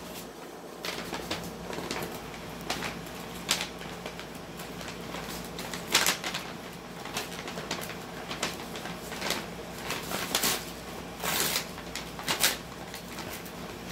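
A corgi puppy tearing and shaking a brown paper bag with her teeth: irregular crinkling and ripping of paper, with sharper rips about halfway through and a cluster of them near the end.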